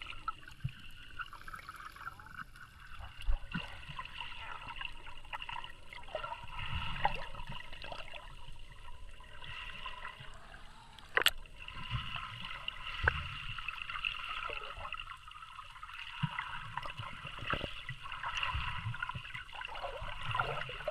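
Underwater ambience picked up by a submerged action camera: a muffled low rumble of moving water under a faint steady high hum, with scattered small clicks and one sharp click about halfway through.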